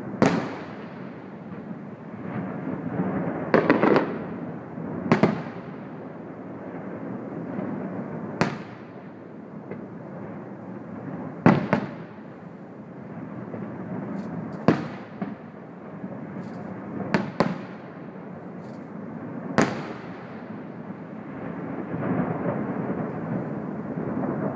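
Aerial firework shells bursting: about eight sharp bangs a few seconds apart, some in quick pairs, over a steady noisy background that grows louder near the end.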